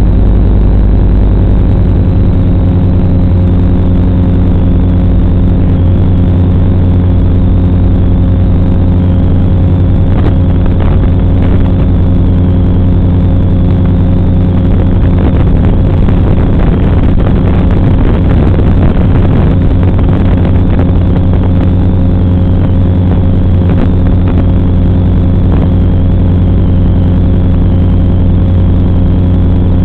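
Racing drone in flight, heard as the audio of its FPV video recording: a loud, steady buzz with a constant low hum that hardly changes in pitch, broken by scattered short crackles through the middle.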